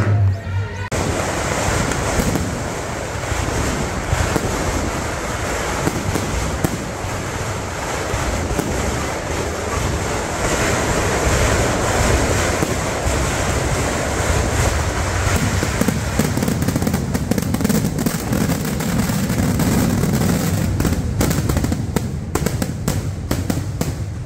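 Fireworks going off in a long continuous barrage: a dense rush of crackling and bangs that starts abruptly about a second in and thins out near the end.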